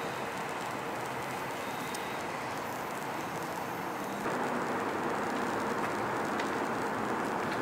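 Steady rumbling noise of an LA Metro light rail train approaching a grade crossing. The noise jumps louder about four seconds in.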